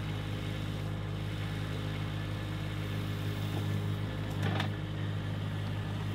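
Diesel engine of a John Deere 325G compact track loader running steadily under load while its forks lift pine logs off a trailer, with a brief scraping noise about four and a half seconds in.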